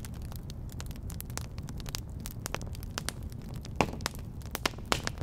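Crackling campfire: irregular pops and snaps over a low steady rumble, with a louder pop about two-thirds of the way through.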